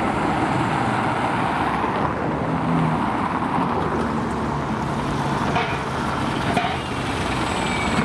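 An Iveco articulated diesel-hybrid city bus and a van driving past: a steady engine hum under a wash of tyre and road noise, with a few light knocks near the end.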